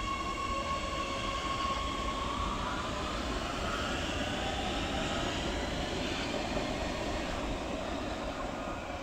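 Oslo metro train pulling away from the platform. Its electric traction drive whines in several steady tones that start rising in pitch about two seconds in as it accelerates, over a low rumble.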